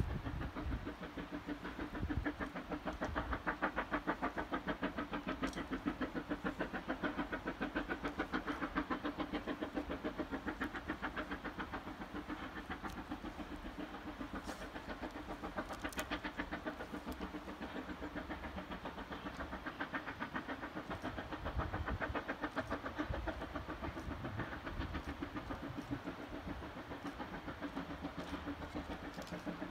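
Vale of Rheidol Railway No 7, a narrow-gauge 2-6-2 steam tank locomotive, working a train up the valley with a fast, even chuffing of its exhaust beats, heard from a distance across the valley.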